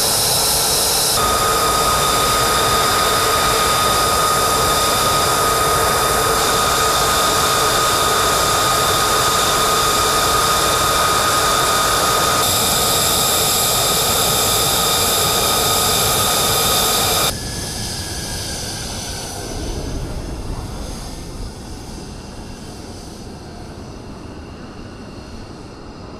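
F-35A fighter jets' Pratt & Whitney F135 engines running on the ground: loud, steady jet noise with a high-pitched whine. About two-thirds of the way through it cuts suddenly to quieter, more distant engine noise of F-35As taxiing.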